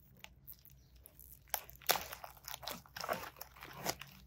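Plastic bubble wrap crinkling and crackling in irregular snaps as hands peel it off a graphics card. It begins about a second and a half in.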